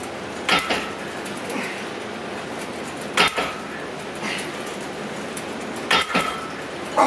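Cable machine clanking with each rep of cable chest flies: sharp metal-on-metal clanks a few seconds apart, each with a brief ring.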